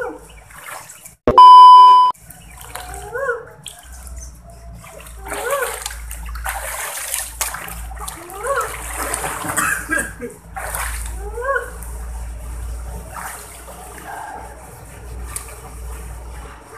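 Swimming-pool water sloshing and splashing as a person wades through it chest-deep, pushing the water with their arms. About a second in, a loud single-tone beep lasting under a second cuts in over it.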